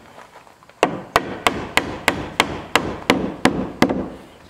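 Hammer nailing a wooden window trim board: about ten quick, even blows, roughly three a second, starting about a second in.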